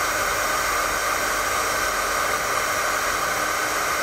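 Electric heat gun blowing hot air steadily, shrinking heat-shrink butt connectors to seal crimped wire joints.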